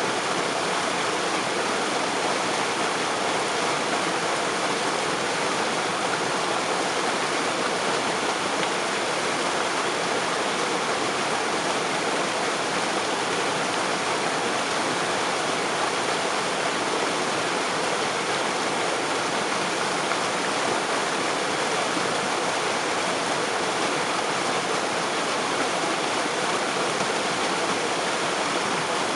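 Waterfall spray: falling water splashing in a steady, even rush that never breaks or changes.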